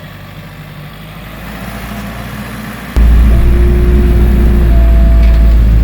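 Vehicle engine running steadily, then much louder and closer from about three seconds in.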